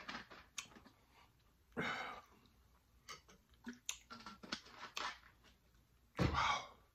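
Close-miked mouth sounds of a person chewing jerk pig tails: scattered small wet clicks and smacks, with two louder noisy bursts about two seconds in and near the end.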